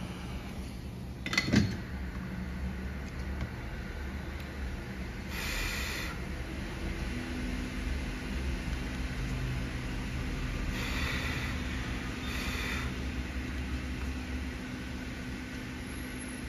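A steady low mechanical hum, such as from a small fan or blower. A single sharp knock comes about a second and a half in, and three short hissing bursts come later.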